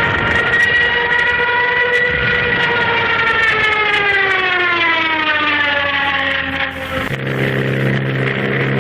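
Junkers Ju 87 Stuka's dive siren (Jericho trumpet) wailing, held at first and then sliding steadily down in pitch. It cuts off abruptly about seven seconds in, giving way to a steady low drone.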